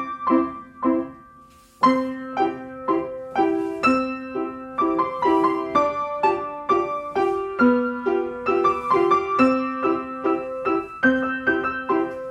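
Piano playing a steady, rhythmic ballet-class accompaniment for a battement tendu exercise at the barre. It breaks off for under a second about a second in, then carries on.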